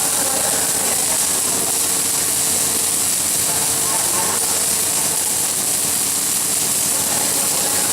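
Welding arc hissing steadily without a break.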